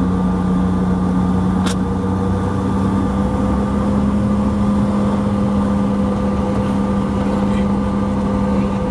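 A CRJ-700's rear-mounted GE CF34-8C turbofan engines running at low power, heard from inside the cabin as a steady hum: a strong low drone with a higher tone above it that rises slightly and settles. A brief click sounds about two seconds in.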